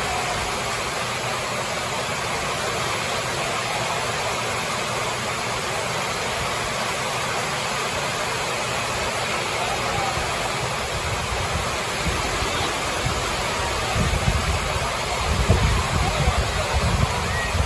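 Heavy hurricane rain on the barn roof, a steady rushing hiss. About fourteen seconds in, low rumbling gusts join it.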